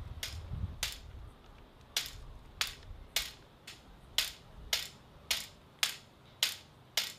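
A cane tapping on brick paving in a steady rhythm, sharp short taps a little under two a second, the tapping of someone posing as a blind man walking along.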